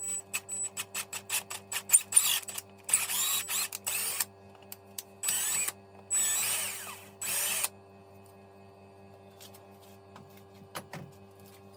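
Handheld power tool, like a drill, run in three short bursts, with quick clicks and knocks before and between them. A faint steady hum follows.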